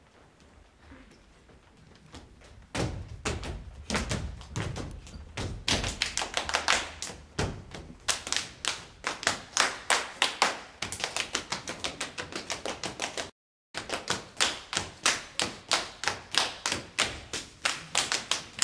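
Body percussion: rhythmic foot stomps on a stage floor mixed with hand claps and slaps, several a second. It starts suddenly about three seconds in, after a few seconds of faint sound.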